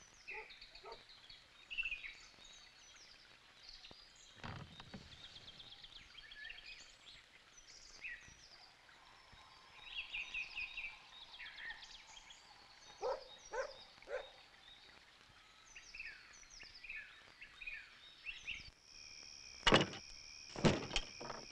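Birds chirping and singing, many short overlapping calls, with a few faint thuds. Near the end the birdsong gives way to a steady cricket trill, and two loud knocks about a second apart, as on a door.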